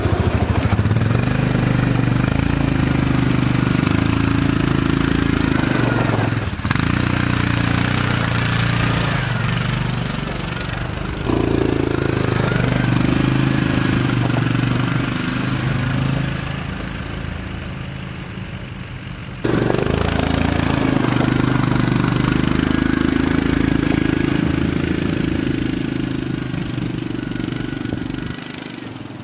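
ATV engine running under load while plowing snow, its pitch rising and falling as the rider works the throttle. The engine fades with distance and then comes back loud at abrupt jumps in the sound.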